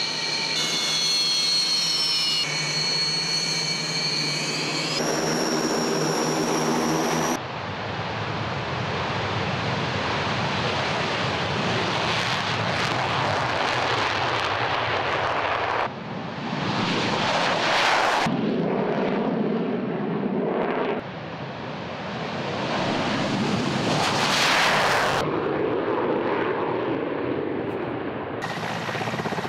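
Sukhoi twin-engine military jets. First a jet's engines run at ground idle with a whine of several steady high tones. After about seven seconds comes a string of abruptly cut takeoffs and flybys, loud rushing jet noise that swells and fades.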